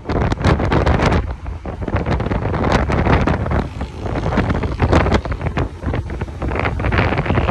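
Wind buffeting a phone's microphone on a moving motorcycle, a loud gusting rush that swells and dips every second or so, with the motorcycle's running and road noise mixed in underneath.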